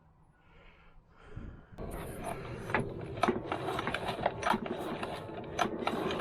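Mechanical rattling and irregular clicking from a 2.5 hp Mercury outboard being worked by hand, starting about two seconds in: the seized motor turning freely again.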